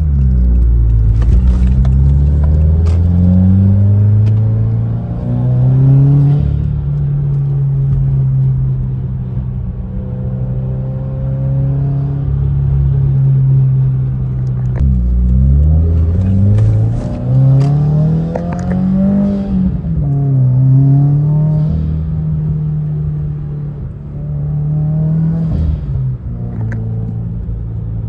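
Subaru WRX's turbocharged flat-four engine heard from inside the cabin while accelerating through the gears of its manual gearbox. The engine note rises with speed, drops at each gear change and climbs again, with stretches of steady cruising between.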